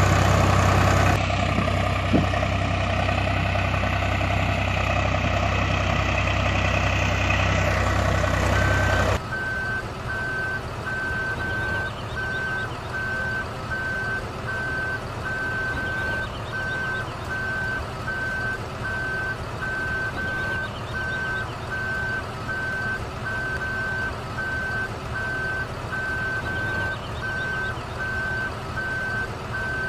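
Truck engine idling with a steady low hum, then about nine seconds in it cuts abruptly to a reversing alarm: a single high tone beeping about once a second over a low engine rumble.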